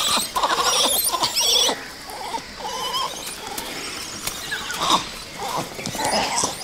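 A troop of gray (Hanuman) langurs giving many short, agitated calls and squeals, densest and loudest in the first two seconds, then coming in scattered bouts: the troop's alarm over what it takes for an injured baby.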